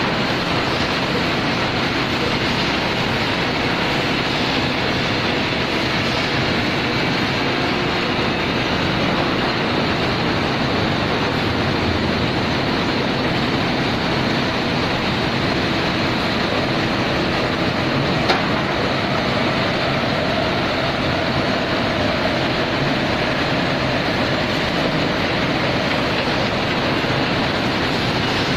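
Uroko rotary veneer lathe peeling a log into veneer: a loud, steady industrial machine noise, with one sharp knock about 18 seconds in.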